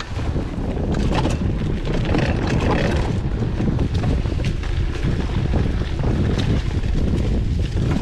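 Wind rushing over an action camera's microphone during a mountain bike ride, with steady low rumble and frequent small knocks and rattles from the bike over rough trail.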